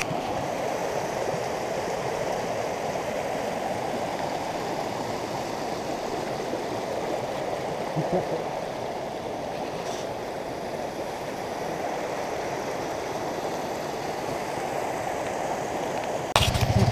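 Shallow creek water running steadily over rocks and gravel where it crosses a dirt road. Near the end a sharp click is followed by a motorcycle engine running.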